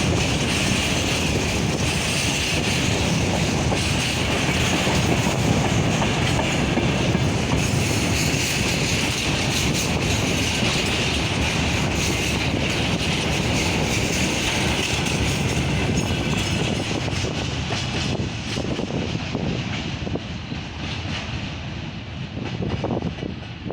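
Railway wagons rolling past, with wheels clattering over the rails and a steady high squeal. The sound fades in the last few seconds as the end of the train goes by.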